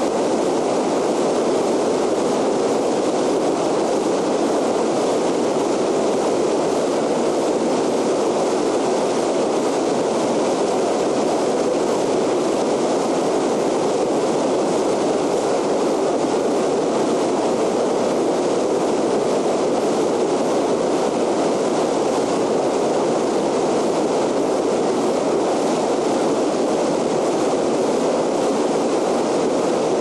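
Swollen whitewater river rushing around a boulder in rapids: a loud, steady, unbroken rush of water.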